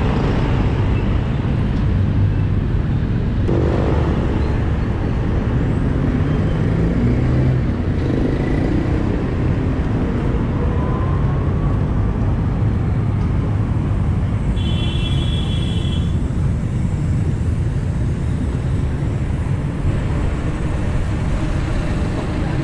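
Steady wind rumble on the microphone with road traffic noise while riding a bicycle along a road. A short low-pitched tone sounds about three and a half seconds in, and a short high-pitched tone lasts about a second and a half around two-thirds of the way through.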